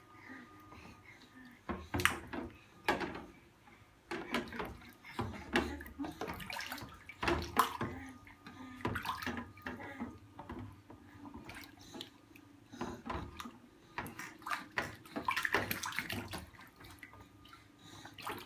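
Water splashing and sloshing in a stainless steel kitchen sink as toddlers slap the water and handle bath toys, in irregular bursts with short knocks between quieter moments.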